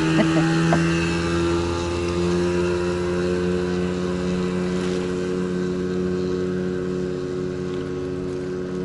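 Outboard motor of a small aluminium motorboat running at speed as the boat pulls away across the river: a steady engine drone that slowly grows fainter.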